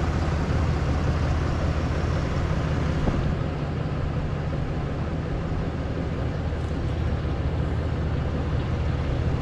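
Lifted full-size pickup truck's engine running steadily at low speed as the truck creeps forward; a low-pitched, even engine sound with no revving.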